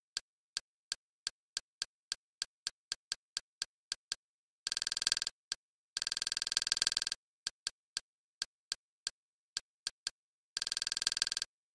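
Kodi user-interface navigation clicks as the cursor steps down a list: single sharp ticks about three or four a second, breaking into rapid rattling runs of clicks twice around the middle and once near the end, where the list is scrolled quickly.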